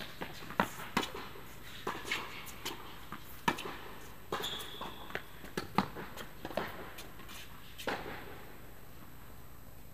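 Tennis rally in a large indoor tennis hall: sharp pops of racket strings striking the ball and of the ball bouncing, spaced irregularly, with footsteps on the court surface. A brief high shoe squeak comes about four and a half seconds in.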